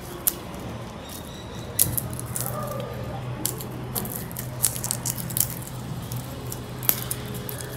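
Kitchen food-preparation handling sounds: scattered light clicks and taps of utensils and containers over a steady low hum.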